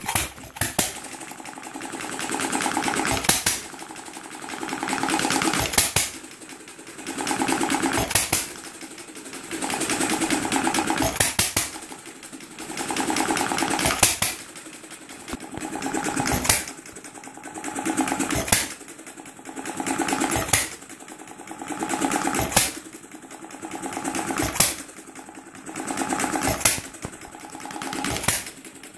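Homemade air-cooled inverted hit-and-miss engine running: a sharp pop each time it fires, about every two to three seconds and a little more often near the end, with the clatter of the engine coasting between firings that swells before each pop.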